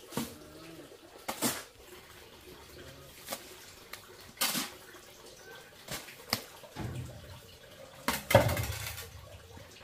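Steel shovel scraping through and scooping wet cement mortar on concrete, in about six short gritty, wet strokes a second or two apart; the longest and loudest comes about eight seconds in, as a load is scooped toward a bucket.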